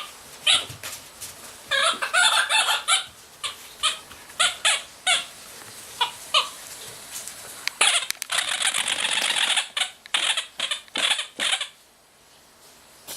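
Squeaky dog toy squeaking many times in quick succession, with a dense run about two seconds in and a longer one from about eight to ten seconds.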